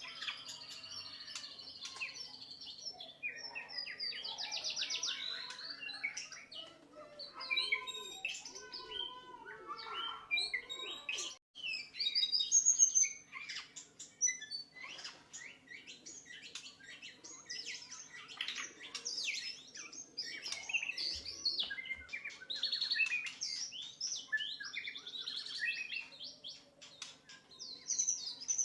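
White-rumped shama (murai batu) singing a long, varied song: rich whistles, rapid buzzy trills and harsh chattering phrases one after another, loudest about halfway through, over a faint steady hum.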